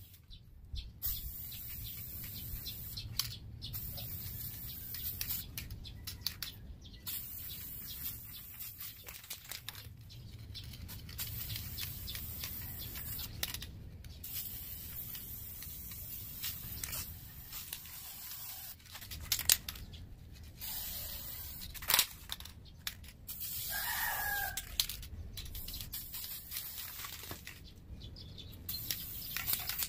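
Aerosol spray paint can hissing in repeated passes with short pauses between them, as silver paint goes onto cast-iron weight plates. There are two sharp clicks, and a rooster crows once late on.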